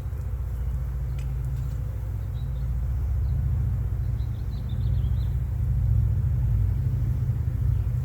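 Wind buffeting the microphone as a steady low rumble that grows louder in the second half, with a few faint high bird chirps in the middle.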